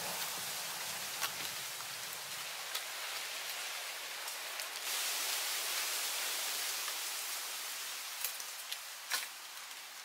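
Steady high hiss of forest background noise, a little louder from halfway on, with a few light clicks from bamboo and rattan being handled.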